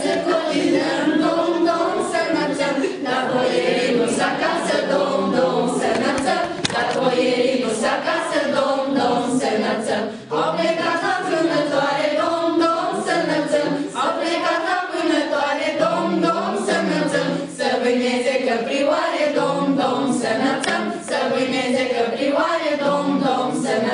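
A small group of young women and men singing a Christmas carol (colind) together, unaccompanied.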